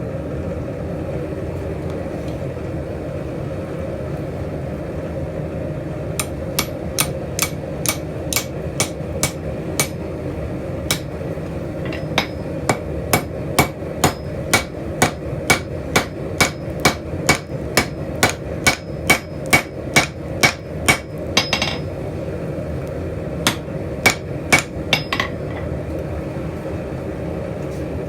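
Hand hammer striking steel on an anvil while forging blacksmith tong blanks: a run of sharp ringing blows, about two a second, beginning several seconds in, with a short break about three-quarters of the way through. A steady low hum runs underneath.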